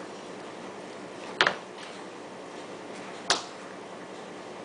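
Two sharp clicks about two seconds apart, the first the louder: the metal cleaning rod knocking against the rifle while a bore brush is run through the action and barrel.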